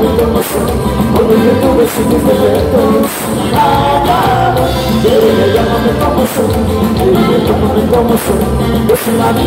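A live band plays dance music on keyboard, electric bass and drums with a steady beat, and a melodic line rises and falls about four seconds in.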